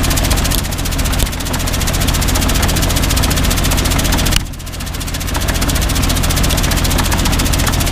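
Tractor engine running steadily at working speed during fertilizer spreading, with a rapid fine ticking over it from fertilizer granules striking the camera housing. The sound dips briefly about four and a half seconds in.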